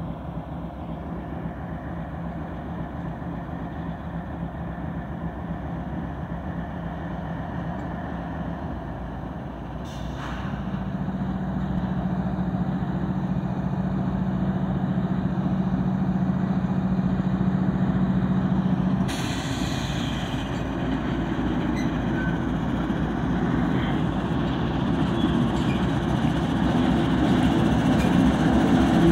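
Two BNSF diesel freight locomotives running as they approach and pass, their engines a steady drone that grows louder as they draw near. The engine note steps up about ten seconds in.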